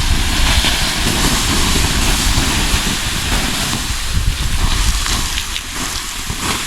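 Campfire being put out, a steady loud hiss and sizzle of the burning wood being doused, easing off toward the end.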